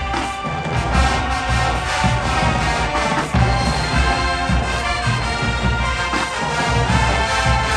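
Marching band playing: loud brass with trombones and trumpets over a pulsing beat of bass drums.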